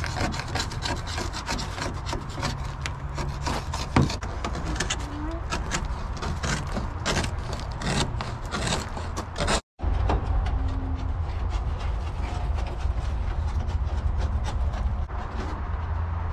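Old flaking paint being scraped and picked off a painted boat deck by hand, with quick, irregular scratchy strokes of a scraper over the hull surface. After a short break about ten seconds in, a steady low background rumble continues with only occasional scrapes.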